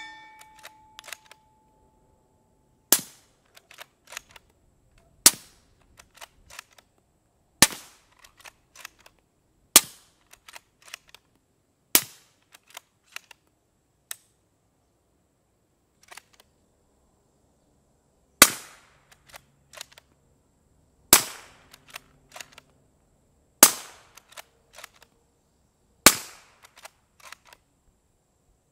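Suppressed rifle shots from a bolt-action rifle firing 220-grain subsonic .300 Blackout through a PWS BDE 7.62 3D-printed titanium suppressor. There are nine shots, mostly about two to two and a half seconds apart with one longer pause in the middle, and each is followed by a few faint clicks.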